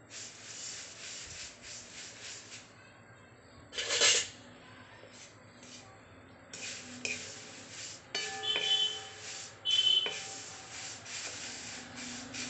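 Dry thin poha flakes being stirred with a spatula in a kadhai during dry-roasting, a scratchy rustle and scrape of the flakes against the pan that comes and goes, with a louder clatter about four seconds in and a few brief ringing tones near the end.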